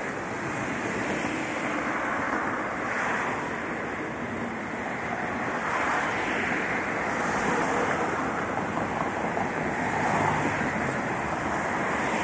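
Road traffic on a city street: cars driving past close by, their tyre and engine noise rising and falling in a series of swells.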